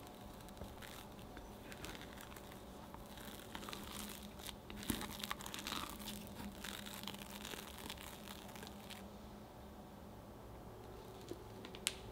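Silicone spatula folding whipped cream into mascarpone cream in a glass bowl: soft scraping with irregular light clicks against the glass, busiest in the middle. A single sharp tap just before the end.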